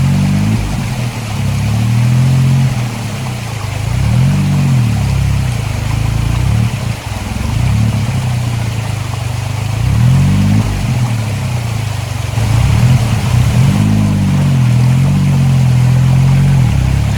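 Suzuki Jimny JA11's small turbocharged three-cylinder engine revving up and down under load while rock crawling. Its pitch rises and falls about five times in repeated bursts.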